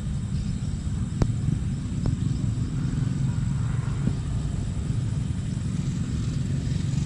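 Steady low rumble, with a sharp click about a second in and a fainter one a second later.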